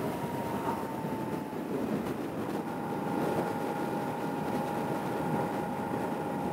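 Motorcycle riding along: wind rushing over the microphone, with a thin engine whine that dips slightly in pitch in the first second or so, then holds a steady pitch from about two and a half seconds in.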